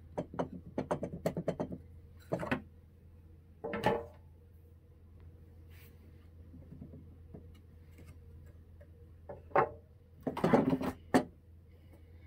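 Table saw sleds being shaken side to side in the runner slots of a small table saw, with the saw not running: a quick run of light clicks and clacks from the sled's play, a few single knocks, then a cluster of louder knocks and scrapes near the end as a sled is lifted off and another set down on the saw table.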